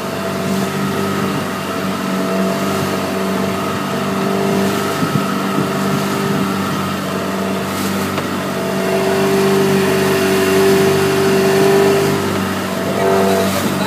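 Small fishing boat's engine running steadily under way, a steady droning hum over a hiss of water and wind. It swells a little louder about two-thirds of the way through.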